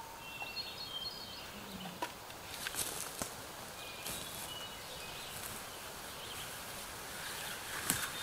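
Footsteps and rustling through forest undergrowth and leaf litter, a few sharp crackles in a cluster about three seconds in and again near the end, while songbirds sing short high whistled phrases in the background.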